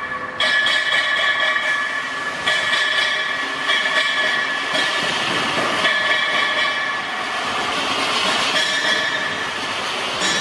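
A 6FT-PH corn cleaning and grinding machine running: a steady, high-pitched mechanical whine with a noisy rush beneath it. The sound jumps abruptly in level a few times.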